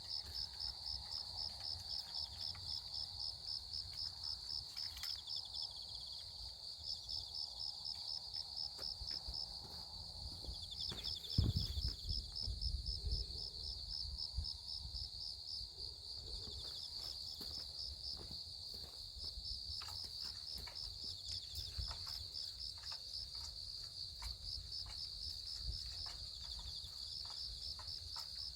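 Insects chirping in a fast, even pulse of several beats a second, with a single dull knock about eleven seconds in and a few faint clicks later.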